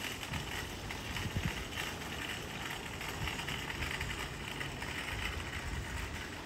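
Airbus A320-232 jet airliner passing high overhead, the steady distant rumble and hiss of its IAE V2500 turbofan engines.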